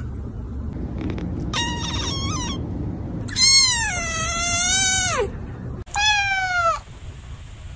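Kittens meowing: three separate high meows, a short one, then a long one that drops in pitch at its end, then a shorter one that falls in pitch near the end.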